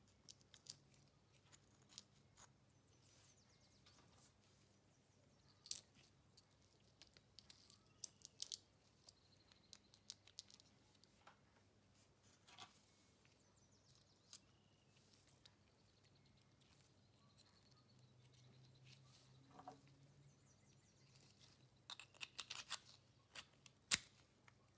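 Sparse, irregular small clicks and taps of a steel ratchet screwdriver's parts being handled, with a short flurry of clicks and rustles near the end, against near silence.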